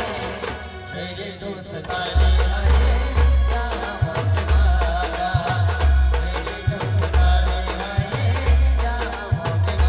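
Adivasi band music without singing: a sustained melody line over deep drum hits that drop in pitch, with fast cymbal ticks. The deep beat drops out near the start and comes back in about two seconds in.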